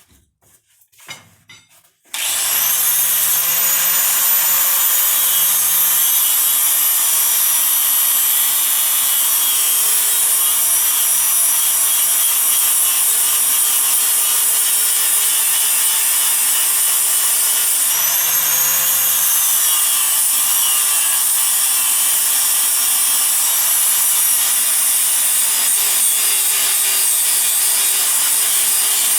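A handheld power tool starts about two seconds in and runs steadily, grinding or cutting metal, its motor note wavering a little as the load changes.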